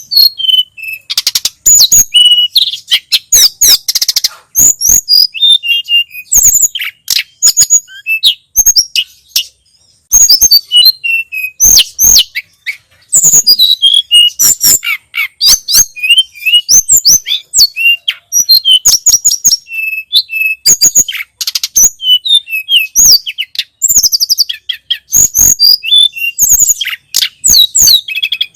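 Tledekan gunung songbird singing a fast, almost unbroken song of chirps, short trills and sliding whistles, with only brief pauses.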